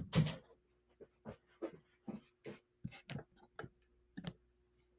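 A brief louder sound right at the start, then about a dozen light, irregular clicks or taps over some three seconds, stopping a little after four seconds in, over a faint steady hum.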